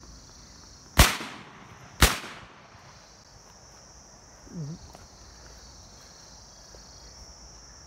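Two shotgun shots from a double-barrelled shotgun, about a second apart, each with a short echoing tail. A steady high insect drone runs underneath.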